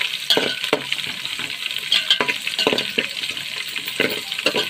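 Chopped onions, green-onion whites and green chillies sizzling in hot oil in a large metal pot, while a metal spoon stirs them and knocks and scrapes against the pot.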